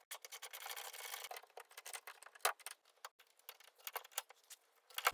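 Many light, irregular metallic clicks and ticks from hand work on the rear drum-brake parts around the e-brake cable.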